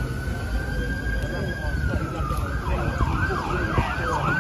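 Emergency vehicle siren: a slow rising wail that switches a little past halfway into a fast yelp, sweeping up and down about three times a second.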